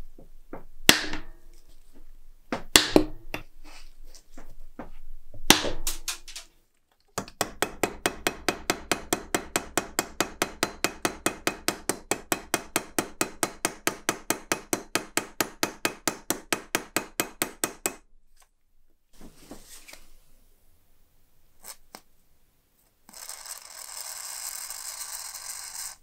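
Hand tool work: three sharp knocks, then quick, even tapping at about five strikes a second for some ten seconds, and a short hiss near the end.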